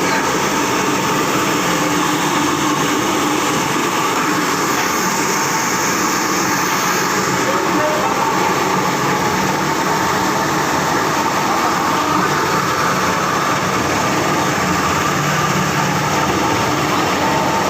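Industrial plastic scrap washing machine running, a steady, even mechanical noise with a faint constant hum and no change in pace.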